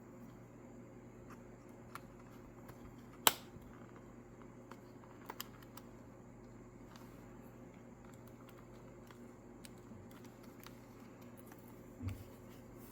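Faint plastic clicking as a pick pries the PS Vita Slim 2000's plastic back shell loose, with one sharp snap of a case clip popping free about three seconds in and a soft knock near the end.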